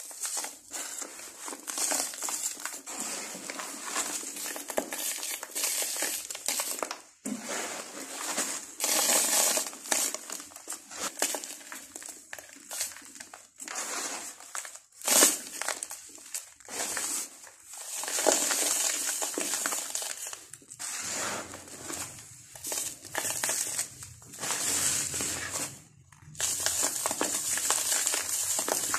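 Dry sand-cement being crushed and crumbled by hand: irregular crunching and crackling strokes with short pauses between them.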